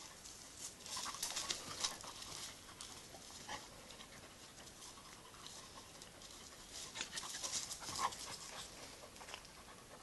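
A jagdterrier puppy and a larger long-haired gundog play-wrestling on gravelly dirt: faint panting and the scuffle of paws on grit. It comes in two flurries, about a second in and again around seven to eight seconds in.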